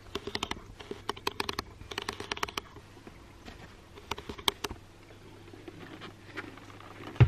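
Handling noise: a quick run of light clicks and taps over the first two and a half seconds, then a few scattered clicks and one sharper knock near the end.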